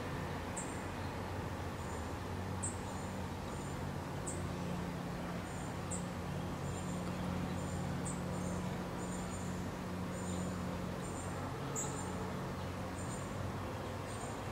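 Outdoor ambience: a steady low hum under high, thin chirps that repeat every second or two.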